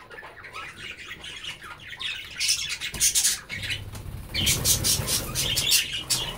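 Budgerigars squawking and chattering in runs of rapid, harsh calls, thickest about two and a half seconds in and again from about four and a half seconds.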